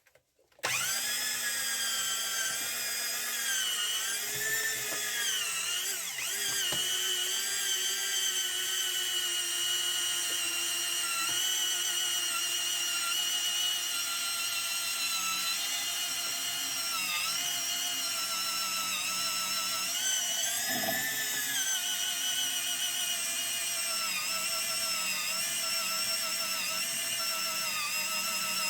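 Electric drill running under load while boring an anchor-point hole, starting about half a second in; its motor whine dips in pitch now and then as the bit bites and then recovers.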